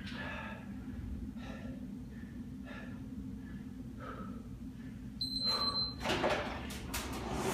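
Heavy breathing over a steady low hum, with a short electronic beep about five seconds in. Near the end an air rowing machine's fan flywheel starts up with a rising whoosh as the first strokes begin.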